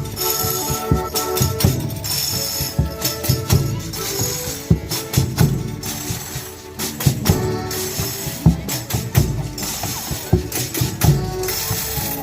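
Folia de Reis band playing, with tambourine jingles shaken in a steady beat over held chords from other instruments.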